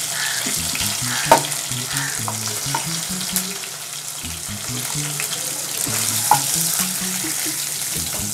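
Chicken breast steaks sizzling in hot oil in a non-stick kadhai, with a wooden spatula scraping under them and knocking against the pan as they are lifted out. A couple of sharper knocks stand out, about a second in and again about six seconds in.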